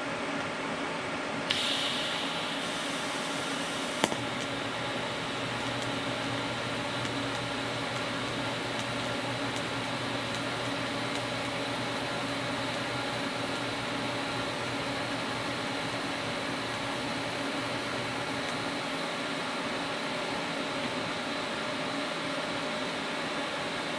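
TIG welding arc from an Everlast 255EXT on thin steel plate, run at full pedal, about 135 amps. A high buzzing hiss about a second and a half in marks the high-frequency arc start, and a sharp click comes near four seconds. The arc then burns with a steady hiss and low hum until it is shut off around eighteen seconds in, over a steady fan-like whir.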